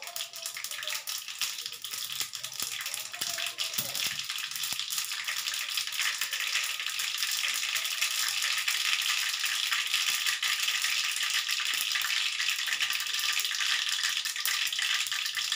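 Mustard seeds crackling and spluttering in hot oil in a kadai, a dense patter of tiny pops that grows louder over the first several seconds and then holds steady.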